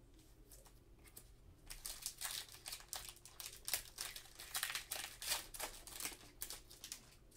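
Panini Mosaic trading-card pack wrapper crinkling and tearing as it is ripped open, a rapid run of crackles starting about two seconds in.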